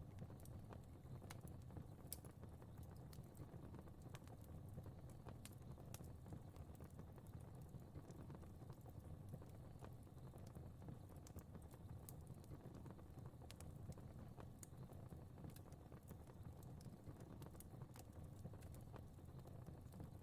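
Fire crackling faintly: irregular sharp pops and snaps over a low, steady rumble of flame.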